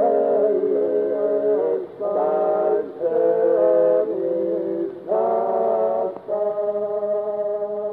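Men's choir singing a cappella in several simultaneous parts, Georgian polyphonic chant or folk song. The singing comes in short phrases with brief breaks, then settles on a long held chord a little after six seconds in.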